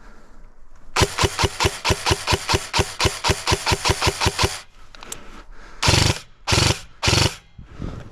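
Airsoft gun firing a quick string of about twenty shots, around six a second, then three short bursts.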